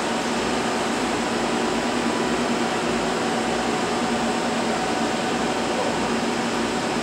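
Steady hum and rush of laboratory machinery and cooling fans, with a few steady low tones running through it and no change throughout.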